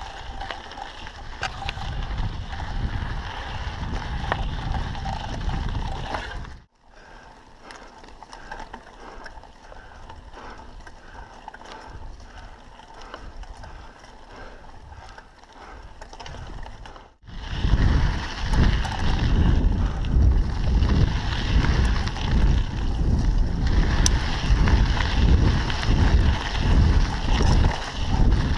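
Mountain bike riding on a dirt trail: tyres on dirt and rock, bike rattle and wind buffeting the microphone. The sound cuts out briefly about seven seconds in and again about seventeen seconds in. The middle stretch is much quieter, and the last stretch is the loudest, with heavy wind rumble at speed.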